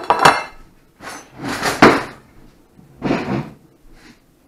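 Plates and a cast-iron skillet knocking and clattering on a wooden table as dishes are set out: several short clatters, the loudest about two seconds in.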